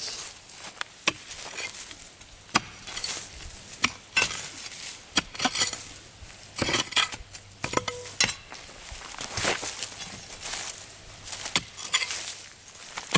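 Steel digging bar and pick mattock working stony soil around a buried rock: irregular metal clinks and knocks against stone, with scraping through dirt between the strikes.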